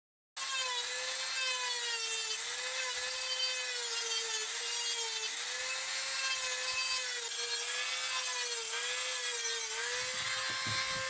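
Dremel rotary tool with a small cut-off disc cutting through cured polyester fiberglass laminate: a steady high whine that starts suddenly about half a second in, its pitch dipping slightly again and again as the disc bites into the material.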